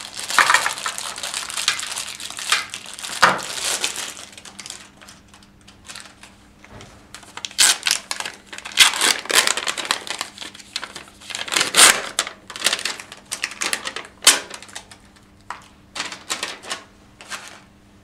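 Plastic and paper sterile packaging crinkling and rustling as packets of cannulation supplies are peeled open and handled, steady for the first few seconds, then broken into short crackles and sharp clicks as items are laid into a plastic tray.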